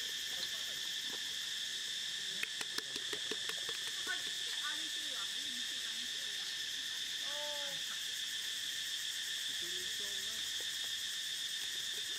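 Steady high-pitched drone of an insect chorus, unbroken throughout. A few light clicks about two and a half seconds in, from hands working a raw duck in a metal wok.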